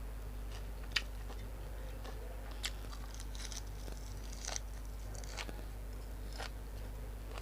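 Someone eating: chewing with a few short, sharp clicks and smacks about once a second, over a steady low electrical hum.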